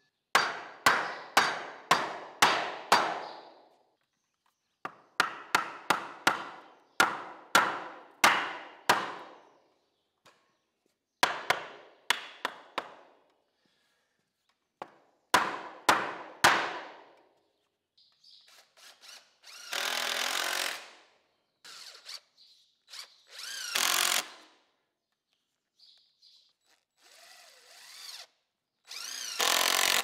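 Hammer blows on wood, in quick runs of several strikes, pounding boards tightly into half-lap notches. About two-thirds of the way in, a cordless drill takes over, running in short bursts while drilling pilot holes in the lumber.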